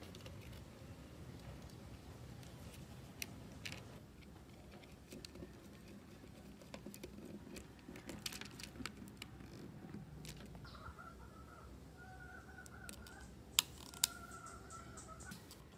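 Scattered light clicks and taps of small tools and parts being handled inside a desk telephone's opened plastic case, with two sharper clicks near the end.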